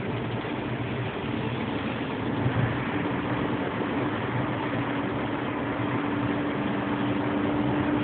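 Car running, heard from inside the cabin: a steady mix of engine and road noise, with a steady hum that comes in about a second in and grows a little stronger.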